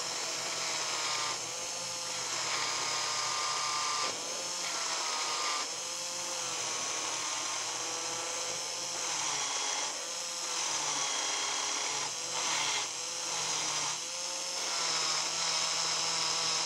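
Small electric motor of a freshly lubricated Piko BR 80 HO-scale model steam locomotive running, turning the wheels against a cleaning block pressed to them. Its whine dips in pitch and recovers several times, over a steady hiss of the wheels rubbing on the block.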